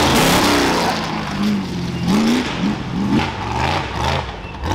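Ultra4 off-road race buggy's engine revving hard, its pitch rising and falling several times, loudest in the first second.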